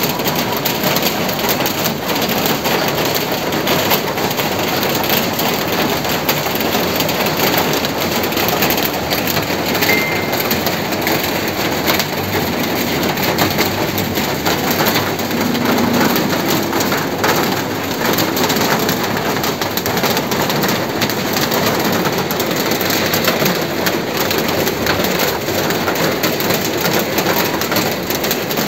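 Steady rain falling: an even, continuous hiss of water with no breaks.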